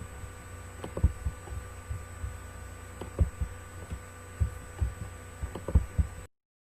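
Irregular low thumps and knocks, about a dozen over several seconds, over a steady electrical hum with a few fixed whining tones. The sound cuts off abruptly near the end.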